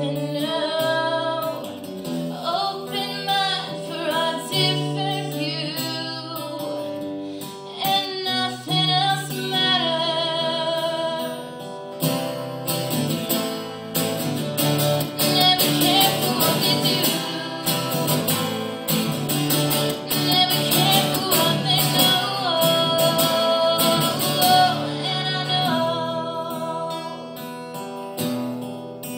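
Live song with two acoustic guitars strummed under a female lead vocal. About halfway through the strumming gets denser and the song louder, then it eases off near the end.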